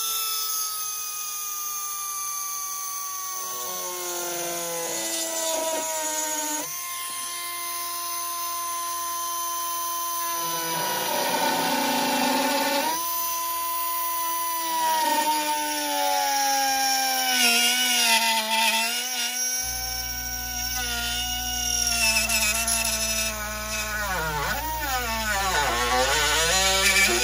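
Cordless Dremel rotary tool grinding away a section of a plastic light-ring housing. The high motor whine sags in pitch as the bit bites and springs back up when it is eased off, a few times over, with a rougher grinding stretch in the middle and a wobbling pitch near the end.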